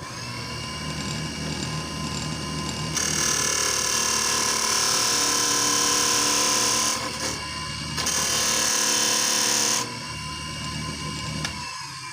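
Wood lathe motor spinning up and running steadily, with a tool cutting into the spinning manzanita burl in two long passes, from about three seconds in and again near the end, each stopping abruptly.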